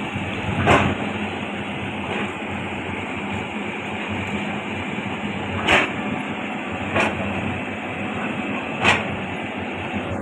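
Caterpillar 320D L excavator's six-cylinder diesel engine running steadily under work, with several sharp knocks at irregular intervals, the loudest about a second in and again near six and nine seconds.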